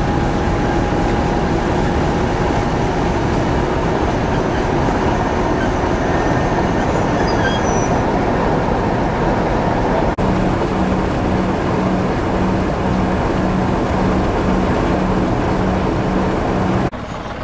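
Diesel locomotive running close by, a loud steady rumble. After a brief break about ten seconds in, a low throb pulses about twice a second.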